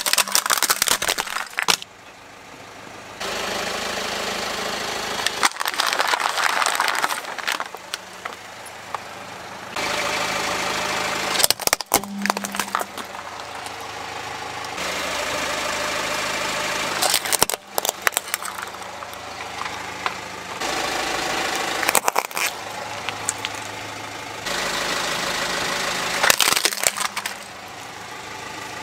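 Hard plastic toy vehicles cracking and crunching under a car's tyre in several short bursts, between stretches of the car's engine idling.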